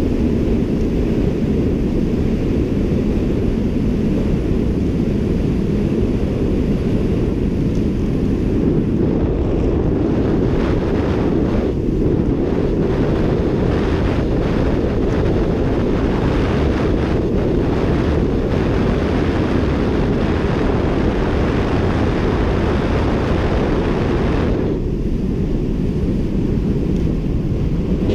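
Wind buffeting the camera's microphone during a fast road-bike descent: a loud, steady low rumble. A higher hiss comes and goes through the middle stretch.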